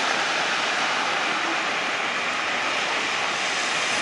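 Cars driving through deep floodwater, their tyres throwing up a steady rushing spray of water.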